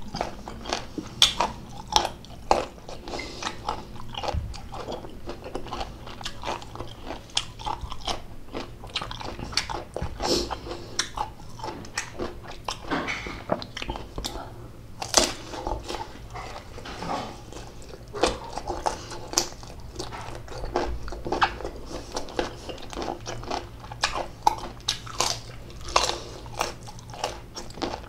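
Raw green mango being bitten and chewed close to the microphone: crisp, irregular crunches and wet chewing.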